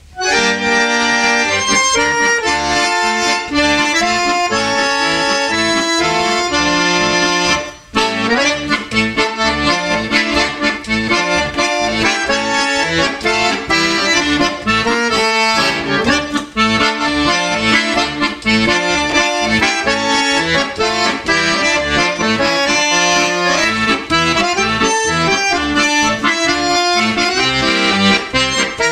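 Chromatic button accordion played solo: a melody over bass and chords, in many quickly changing notes, with a brief break about eight seconds in.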